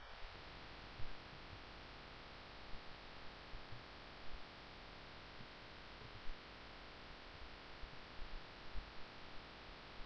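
Faint recording background: a steady hiss with a low electrical hum, broken by a few soft, low bumps.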